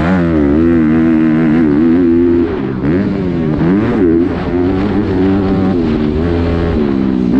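Honda motocross dirt bike engine at close range, revving hard and falling back several times as the rider works the throttle and gears while accelerating up the track. The revs drop briefly about two and a half seconds in and again near the end, with a steadier stretch at high revs between.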